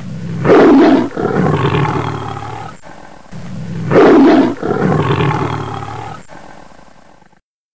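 Recorded big-cat roar sound effect, played twice in a row: each time a loud roar followed by a long growl that fades off, the pair identical, and the sound cutting off abruptly near the end.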